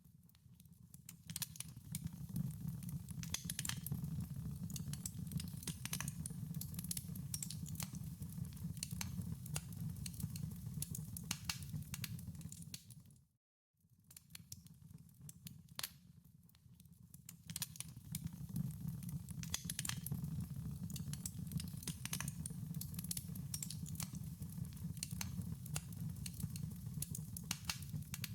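Wood fire crackling, with many small sharp pops over a low steady rumble of the flames. The sound cuts out suddenly about halfway through, then fades back in and carries on the same way.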